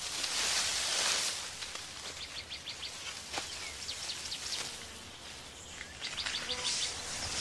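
Mountain forest ambience: a bird gives a rapid, clicking trill three times, each run a fraction of a second long, over a rustling swell in the first second.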